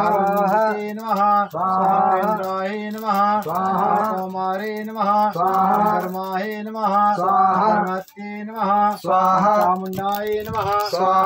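A voice chanting Sanskrit havan mantras in a steady sing-song recitation, with short pauses between lines.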